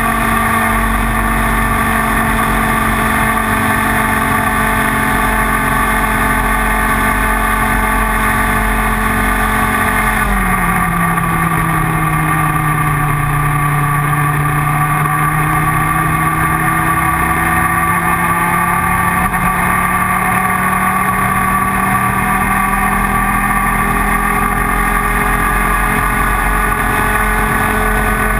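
IAME Leopard 125cc two-stroke kart engine running at high revs, holding steady, then the revs drop sharply about ten seconds in and climb slowly and evenly back up through the rest.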